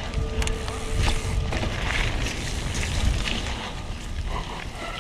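Mountain bike rolling over a dirt trail, heard from a camera mounted on the rider: a noisy low rumble of tyres and wind with scattered knocks and rattles. A faint steady tone stops about a second and a half in.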